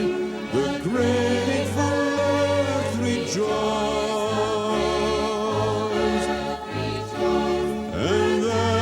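Sacred Christmas music: a choir holding long, wavering notes over a slowly stepping bass line, with no words made out.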